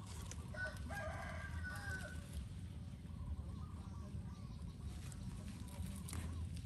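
A single drawn-out animal call with several stacked tones, starting about half a second in and lasting under two seconds, over a steady low rumble.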